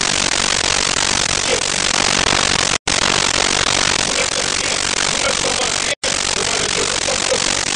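Loud, steady hiss of static or white noise that cuts out to dead silence for an instant twice, about three seconds apart, with a few faint, short tones barely showing through.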